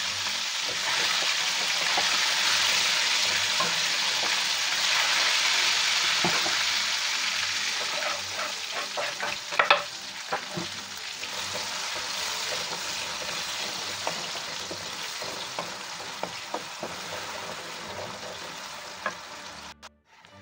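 Hot oil with ginger-garlic and green chilli paste sizzling loudly in a metal wok. About ten seconds in there is a sharp, loud burst as chopped onions go into the oil. After that the frying is quieter, with scattered knocks and scrapes of a wooden spoon stirring against the wok, and the sound cuts off abruptly just before the end.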